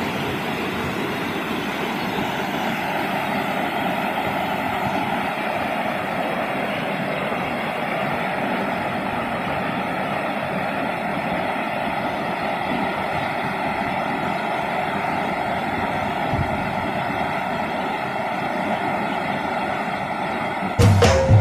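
Steady rushing of a waterfall pouring into a rock pool, an even roar of water with no change. Music cuts in at the very end.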